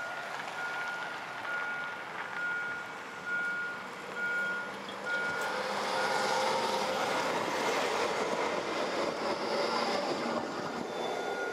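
Electric low-floor tram passing close by, its wheels running on the rails with a motor hum, loudest from about six to ten seconds in. A short high beep repeats in the background before and after it passes.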